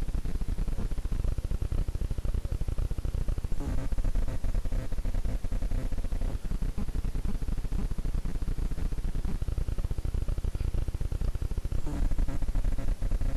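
Steady rough crackling noise with a low rumble, broken twice by a brief pitched sound, about four seconds in and again near the end.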